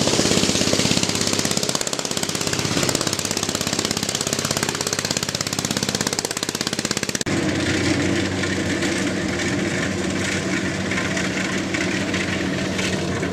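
Diesel engine running with a rapid, even knocking beat; about seven seconds in the sound changes abruptly to a steadier engine hum.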